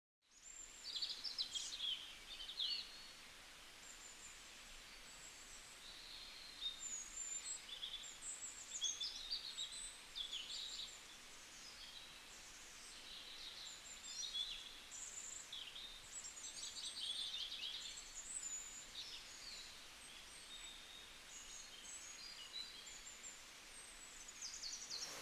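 Faint chirps and short trills of small songbirds, coming in quick clusters throughout, over a soft steady hiss.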